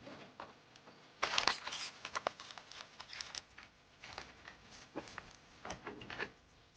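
Irregular rustling and crinkling with light clicks and taps: fishing gear being handled.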